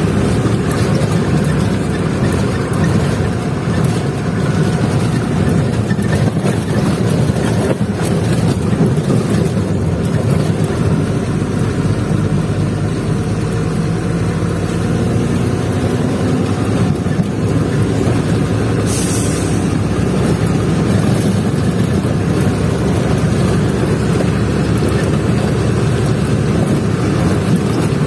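Truck engine running steadily as the truck drives along, with a brief hiss about two-thirds of the way through.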